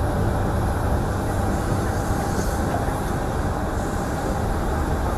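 Steady low rumbling outdoor noise with a faint hiss, even throughout with no distinct events.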